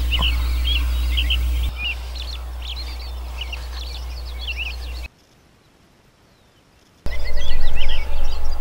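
Small songbirds chirping and singing over a steady low rumble of outdoor background noise. About halfway through, the sound drops out completely for about two seconds, then comes back louder.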